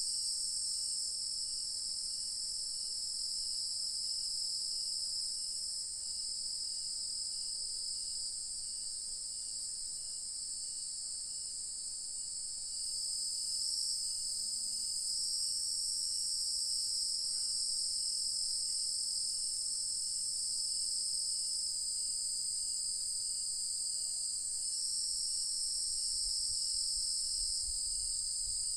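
Evening insect chorus in the countryside: a steady, high-pitched drone of many insects that swells and eases every few seconds, with a fainter, higher chirp pulsing about twice a second beneath it.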